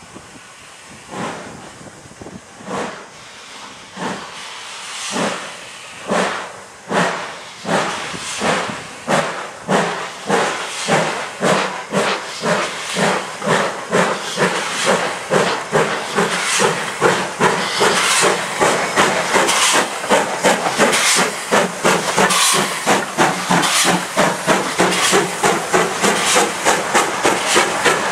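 Ivatt Class 2MT steam locomotive working away from a start, its exhaust beats at first slow and about a second apart, then quickening and growing louder until they come about three a second, with a hiss of steam beneath.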